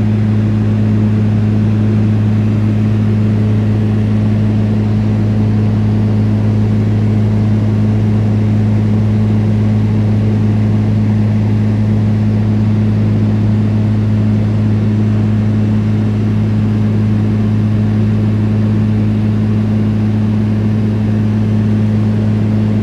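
Single-engine propeller plane running steadily in level flight, heard from inside the cabin: a constant low drone with a second tone an octave above it and a rush of noise underneath, unchanging in pitch or loudness.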